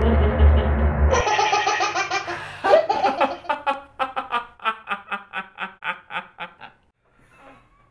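Music with a heavy bass cuts off about a second in. A young man then laughs loudly, a long belly laugh of repeated 'ha' pulses, about four a second, that fades away.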